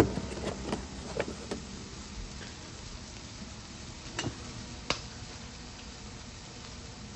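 A few light clicks of eggs being handled in a cardboard egg carton, then two sharp taps about four and five seconds in as an egg is cracked against the rim of a frying pan.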